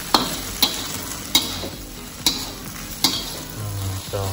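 Metal spatula stirring and tossing fried rice vermicelli in a wok, with sharp scrapes and knocks against the pan about every half second to a second, over a steady sizzle of frying.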